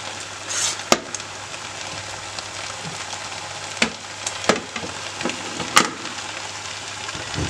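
A spoon knocking and scraping in a biryani pot as a layer of chicken is spread over the rice, over a steady low sizzle. There are four sharp knocks: about a second in, and three more from around the middle on.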